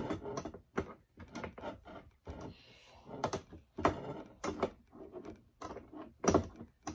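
Ring light parts being handled and fitted together: a string of irregular clicks and knocks, with a few louder knocks in the second half.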